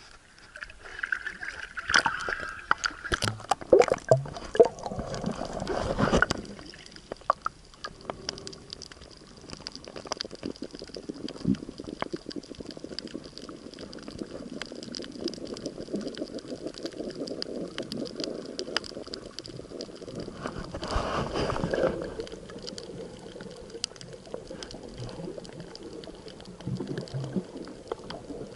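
Entry into the sea from a small boat: a few seconds of splashing and rushing water, then the muffled underwater hush with scattered faint clicks, and a louder rush of water about three-quarters of the way through.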